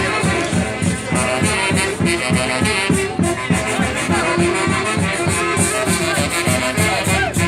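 Festive band music with a quick, even drumbeat of about four beats a second under a sustained melody, playing without a break.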